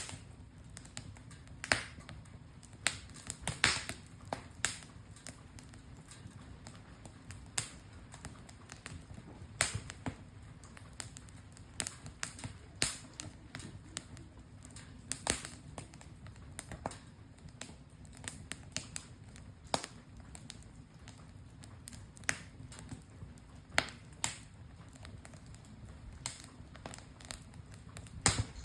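Wood campfire crackling, with sharp irregular pops and snaps over a low steady hiss.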